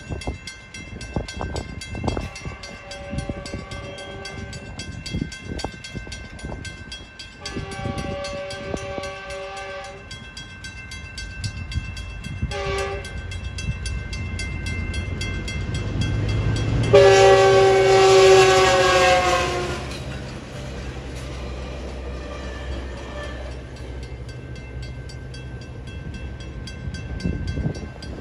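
Passenger train's horn sounding the grade-crossing signal, long, long, short, long, louder as the train nears, the last long blast the loudest. Crossing bells ring steadily throughout, and the train's rumble follows the horn.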